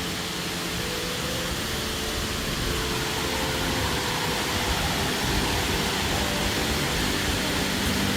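Waterfall rushing, a steady loud roar of falling water, with soft background music under it.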